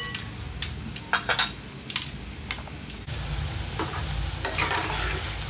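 For about three seconds, a fork clicks against a bowl as fried peanuts, cashews, garlic and curry leaves are mixed. Then steady sizzling takes over: boondi (gram-flour batter drops) frying in hot oil, stirred with a ladle, with a few clicks of the ladle against the pan.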